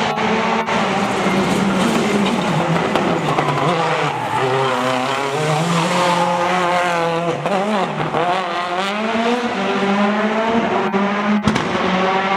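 Citroën DS3 WRC rally car's turbocharged 1.6-litre four-cylinder engine revving hard, its pitch climbing and dropping again and again as it is driven through drifts, with tyres squealing. A few sharp cracks come near the start and again near the end.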